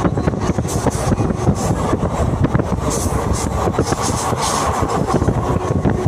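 Kota Intercity Express passenger train running along the track, with a dense, steady rattle of wheels and carriages.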